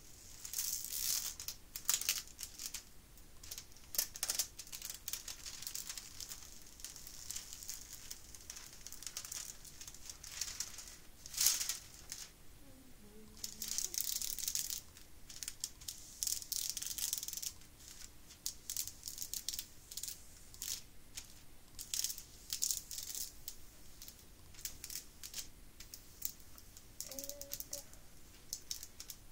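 Hands rubbing and smoothing a plastic-film-covered diamond painting canvas, the film swishing and crinkling in irregular strokes with occasional sharper scrapes.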